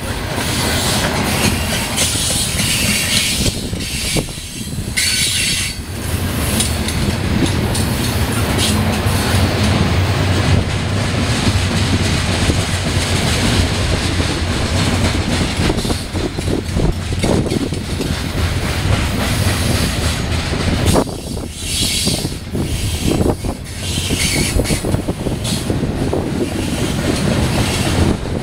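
Freight cars rolling past close by, their steel wheels clattering steadily over the rails. High wheel squeal rises a few seconds in and again past the middle.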